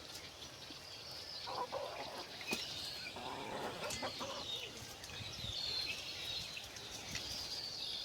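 Laying hens clucking, with short high chirps all through and a few louder clucks near the middle.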